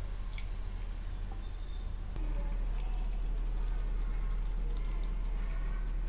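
Water poured from a steel tumbler onto cashews, coconut and poppy seeds in a mixer-grinder jar. About two seconds in this gives way to tomato-onion masala simmering in a kadai, with faint crackling pops over a steady low hum.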